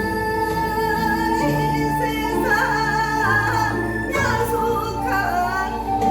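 A woman singing a Korean folk song (minyo) over instrumental accompaniment, with long held notes and wavering, ornamented pitch bends.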